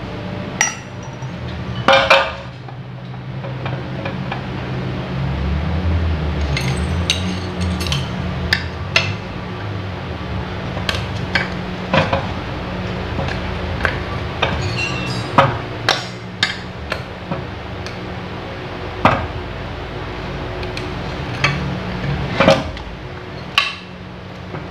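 Irregular sharp metal clinks and taps from steel parts of a gondola hoist being handled and struck during disassembly, over a steady low hum.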